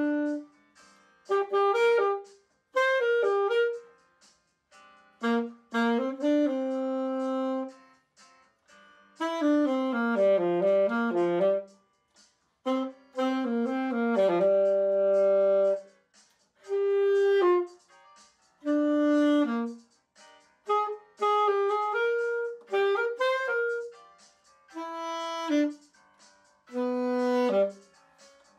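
Alto saxophone played solo without accompaniment: short phrases of held notes and a quick run of notes about ten seconds in, with brief pauses between phrases.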